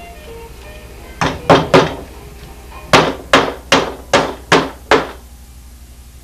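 A hammer driving a silicon bronze ring nail into a wooden boat plank: three quick blows, a short pause, then six more evenly spaced blows.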